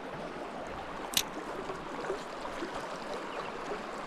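River water running steadily, with one sharp click about a second in.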